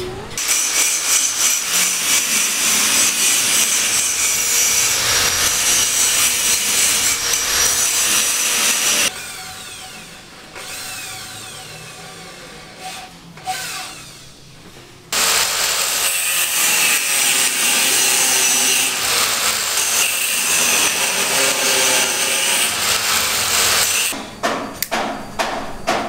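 A power tool runs loud for two long stretches, with a quieter gap in the middle, then gives way near the end to rhythmic tool strokes about twice a second.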